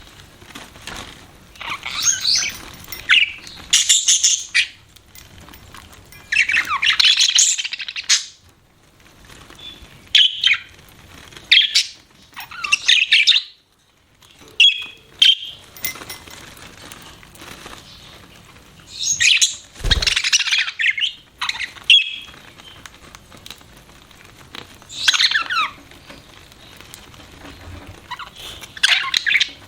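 Budgerigars chirping in quick clusters of short, high calls with brief pauses between them. A short low thump comes about two-thirds of the way through.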